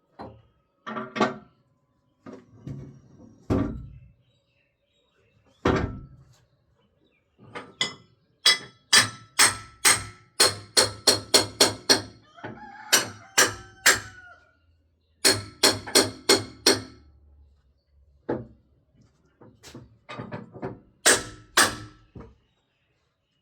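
A series of sharp knocks, each with a brief ringing tone, coming in quick runs of about three or four a second with scattered single knocks between.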